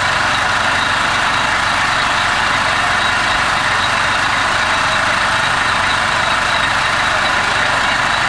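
Steady, loud engine drone with a hiss over it, unchanging in level.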